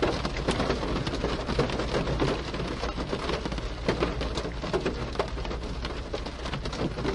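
Rain falling on a car roof, recorded from inside the parked car: a dense patter of drops with louder single drops striking now and then.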